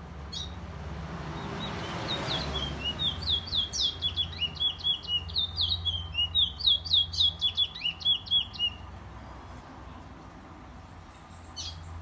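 A caged black songbird singing a fast run of sharp, repeated high notes, about four a second, for some six seconds, with a single short call before and after it. A steady low hum runs underneath.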